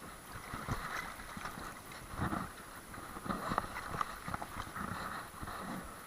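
Water sounds, uneven and gurgling, with scattered small clicks and knocks.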